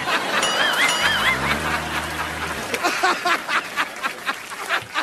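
Several people laughing loudly together. A wobbling high tone and a low drone sound over the laughter in the first half.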